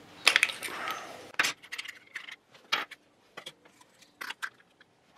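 Irregular metallic clinks and small rattles of an angle grinder's disc and flange nut being taken off, louder in the first second and a half and lighter after.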